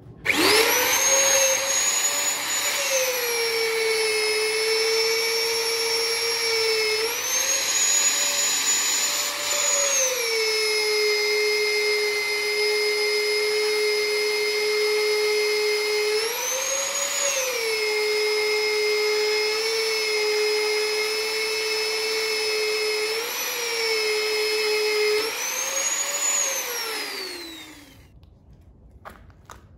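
Electric angle grinder switched on and run, its high motor whine sagging in pitch each time it is pressed onto the steel and rising again when lifted off, several times over. Near the end it is switched off and winds down with a falling whine.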